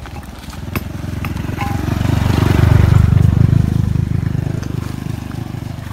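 Small motorbike riding past close by on a dirt lane, its engine rising to a peak about three seconds in and then fading away.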